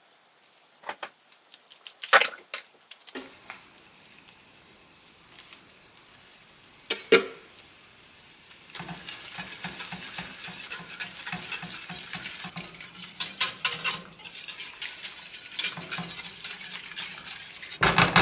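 Pan juices in a roasting pan sizzling on the stovetop while a utensil stirs and scrapes the pan, the sauce being made from the drippings. A few sharp metal clanks come first, and the sizzling grows louder about halfway through.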